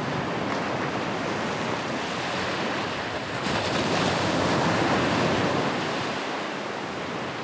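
Ocean surf: a steady rush of waves washing in that swells about four seconds in and then slowly fades.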